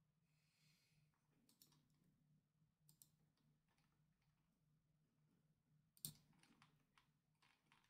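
Near silence: room tone with a faint low hum and a few scattered soft clicks, the loudest about six seconds in.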